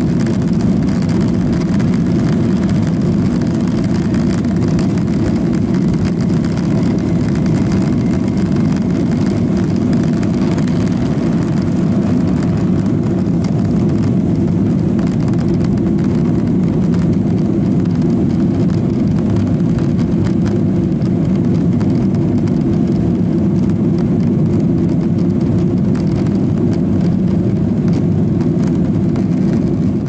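Cabin noise of a Boeing 737-800 taking off, heard from a window seat over the wing: its CFM56 turbofan engines running steadily at takeoff power through the end of the takeoff roll, lift-off and early climb. The noise is loud, deep and unbroken.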